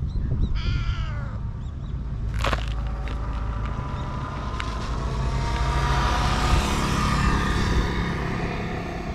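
A short animal call that falls in pitch sounds near the start, followed by a sharp click. Through the second half an engine passes, growing louder, over a steady low outdoor rumble.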